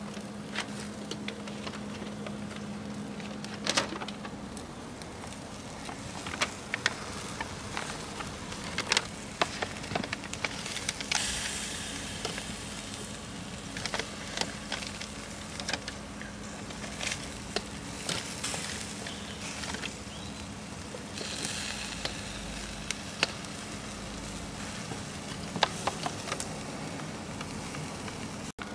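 Chicken sizzling over charcoal on a small kettle grill, with scattered sharp clicks of metal tongs against the wire grate as the pieces are turned. A steady low hum runs underneath.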